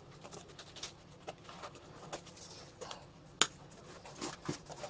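Handling noise from a camouflage modular plate-carrier vest as pouches are fitted onto it: fabric and straps rustling, with scattered small clicks and one sharp click about three and a half seconds in.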